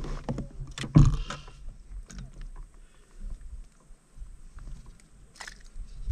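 Knocks and clicks of a freshly caught fish being handled and unhooked on a plastic fishing kayak, with a loud thump about a second in.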